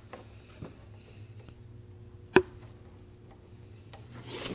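Stainless brake line's metal banjo fitting being handled at a motorcycle's front brake caliper: faint clicks, and one sharp metallic tap about two and a half seconds in that rings briefly.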